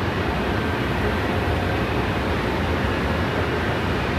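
Steady, even rushing drone with a low hum: the background noise of a large railway station hall, its ventilation and machinery running.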